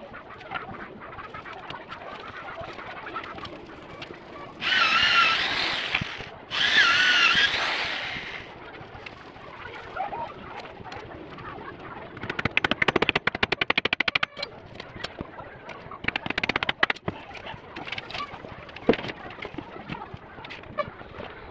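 Wooden slats knocking and clattering as they are handled on a wooden frame, with birds calling. Two loud bird calls with a wavering pitch come about five and seven seconds in, and there are short runs of rapid rattling clicks past the middle.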